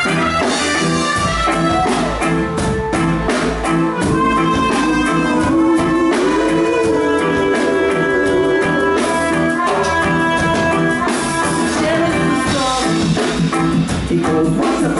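Live reggae music: a vocal group singing together over a live backing band with drums.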